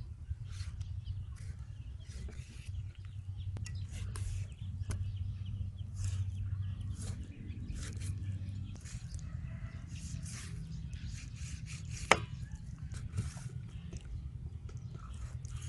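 A large kitchen knife slicing and scraping through raw chicken wings on a wooden chopping block, in many short strokes, with one sharp knock of the blade on the wood about twelve seconds in. A steady low rumble runs underneath.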